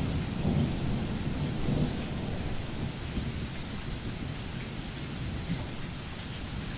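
Steady rain with low rolling thunder, the rumble swelling in the first two seconds.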